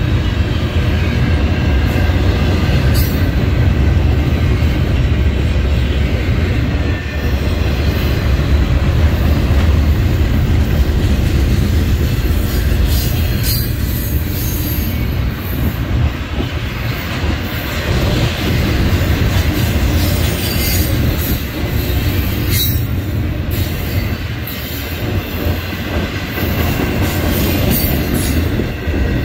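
Double-stack intermodal well cars of a long freight train rolling past close by: a steady heavy rumble of steel wheels on rail, with brief high-pitched wheel squeals a few times.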